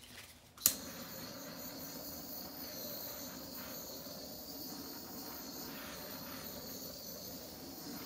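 A small handheld torch clicks alight about half a second in, then its flame hisses steadily as it is passed over wet acrylic pour paint.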